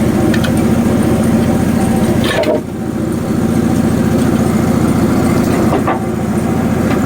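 Hudson HFE30 band sawmill's gas engine running steadily with an even pulsing beat. Its sound dips briefly twice, about two and a half and six seconds in.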